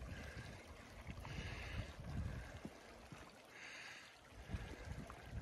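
Wind buffeting the microphone as a hand-held camera moves along a trail, an uneven low rumble, with soft hissing sounds recurring every second or two.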